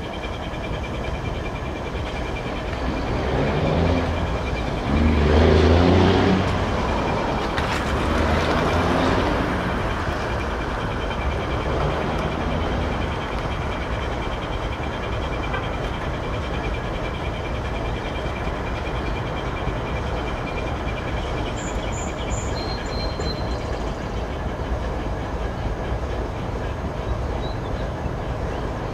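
Freight train approaching from a distance: a steady rumble of diesel locomotives and rolling rail cars, with faint steady high-pitched tones over it. A louder rumble swells a few seconds in, peaks, and fades again.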